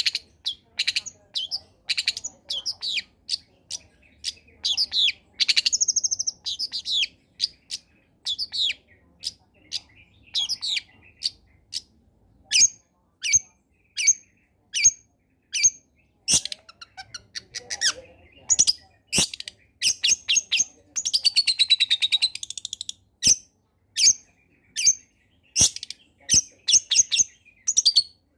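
Long-tailed shrike (cendet) singing a varied, mixed song: a fast string of short, sharp, high chips and whistles with quick trills. About three quarters of the way through comes a harsh, buzzy rattle that falls in pitch.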